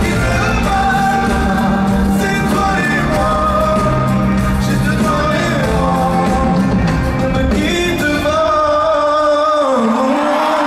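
Live pop ballad heard from the audience: a male singer over the band's drums and bass. About eight seconds in the band drops out, leaving his held final note, which dips in pitch near the end.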